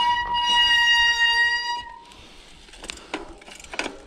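Mountain bike disc brake squealing: one steady, high-pitched squeal with overtones that stops about two seconds in. A few short knocks follow.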